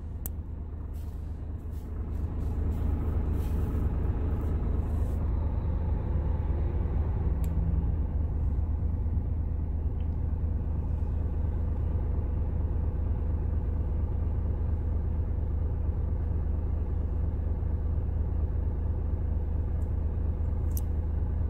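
Truck's diesel engine idling, heard inside the cab as a steady low rumble that grows louder over the first few seconds, with a few faint clicks.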